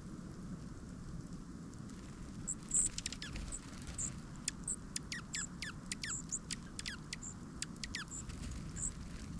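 Small birds at a feeder calling in a quick run of high chips and short downward-sweeping notes, starting a couple of seconds in and going on until near the end, over a steady low background rush.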